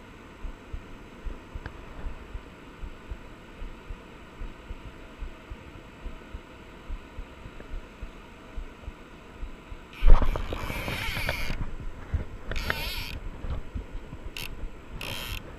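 Muffled rush of river water with irregular soft thumps, heard at the water's surface. About ten seconds in, a sudden loud burst of rough splashing noise, followed by a few more short bursts.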